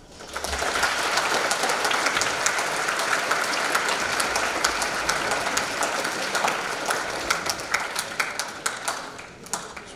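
An auditorium audience applauding: the clapping starts abruptly, holds steady, then thins out to scattered claps near the end.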